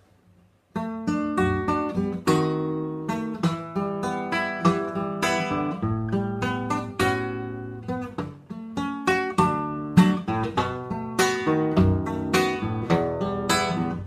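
Nylon-string classical guitar played solo, a run of plucked notes and chords as a song's instrumental introduction, starting about a second in after a brief silence.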